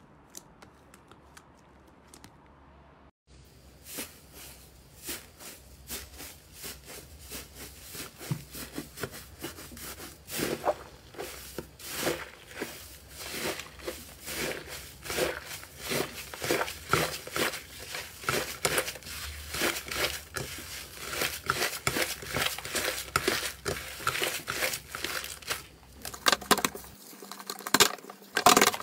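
Slime being squeezed and pressed by hand, giving dense, irregular crackling and popping clicks that start about three seconds in and grow louder.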